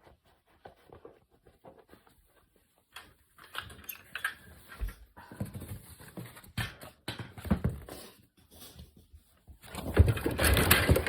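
A frightened rescued stray kitten scuffling and struggling, with rustles and knocks that grow louder near the end.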